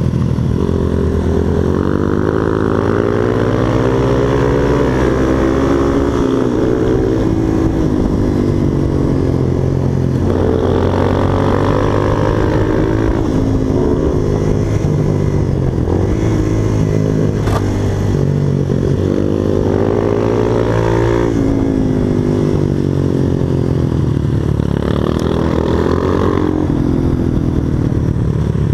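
Supermoto motorcycle engine heard from on board, revving up hard under acceleration and falling off as the throttle is closed for each corner, over and over as the bike laps the track.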